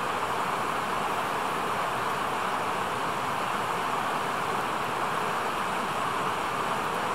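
Steady, even rushing noise with no separate events in it: outdoor ambience, most likely water or wind.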